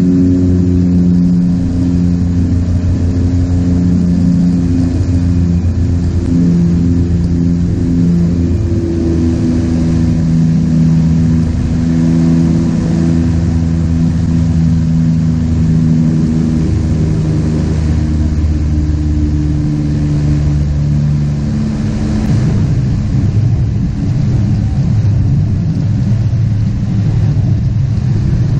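de Havilland Canada Twin Otter's Pratt & Whitney PT6A turboprop engines and propellers running loudly through a landing on a sand beach, heard from inside the cabin beside the engine. A steady, deep propeller drone with several pitched tones gives way about 22 seconds in to a rougher, noisier rumble.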